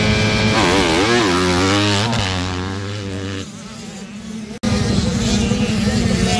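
Four-stroke Yamaha motocross bike engine held at revs, then revved up and down several times and fading away as the bike pulls off from the start. After a sudden cut about four and a half seconds in, a motocross engine idles steadily.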